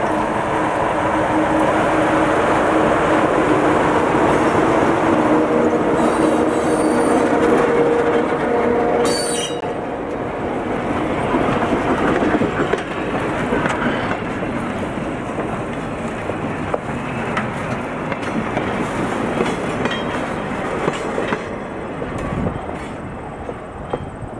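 Diesel switcher locomotive passing close with its engine running, then the cars rolling by with brief wheel squeals and clicking over the rail joints, fading toward the end as the train moves away.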